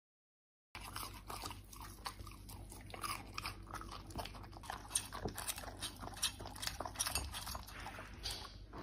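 After a moment of silence, a Samoyed's mouth sounds: chewing on a bite of raw quail and licking its lips, a steady run of small wet clicks and crunches.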